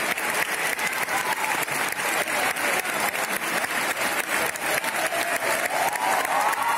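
Crowd applauding, a dense steady clapping, with a few voices calling out near the end.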